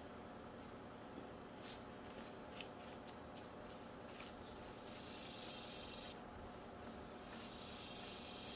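Faint scratchy strokes of a 220-grit sanding sponge rubbing over primer on a painted wooden table leg, with a longer hissing stroke about five seconds in: light sanding of the dried primer.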